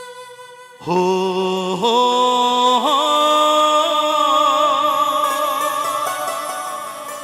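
Male baul singer's wordless opening call into a microphone: a long held note about a second in that rises in two steps and then is sustained with a wide vibrato, slowly fading, over steady instrumental backing.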